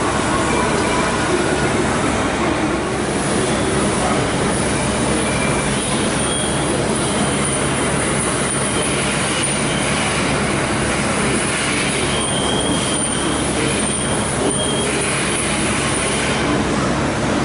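Okuma MACTURN 30 multi-axis CNC turning centre running: a steady, dense mechanical noise with brief high-pitched squeals now and then.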